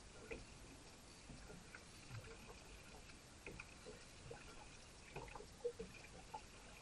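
Quiet on a small drifting fishing boat: faint water lapping at the hull, with scattered light knocks and clicks.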